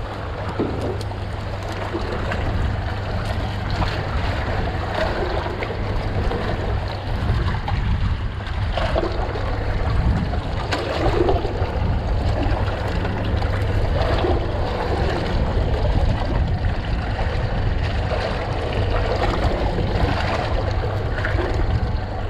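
Water sloshing and trickling around a small fishing boat, over a steady low rumble, with faint scattered knocks.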